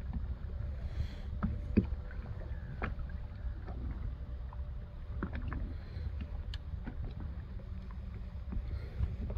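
Water lapping and slapping against the hull of a small drifting boat. Under it runs a steady low rumble, with scattered light knocks and ticks throughout.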